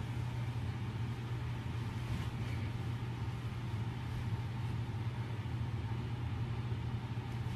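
Steady low hum under a faint even hiss, unchanging throughout.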